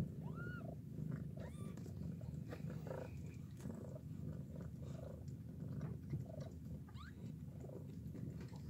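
Mother cat purring steadily while nursing her newborn kittens, with a few short, thin, high mews from the kittens, one about half a second in and another near the end.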